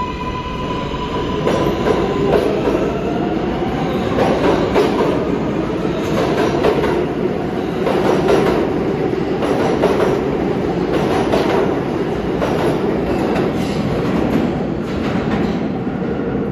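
New York City subway train running through the station: a loud, steady rumble of wheels on rail with regular clacks about once a second, and a faint rising motor whine in the first few seconds.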